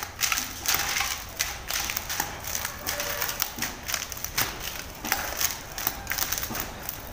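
Chapati dough being kneaded and beaten by hand on a wooden board: an irregular series of knocks.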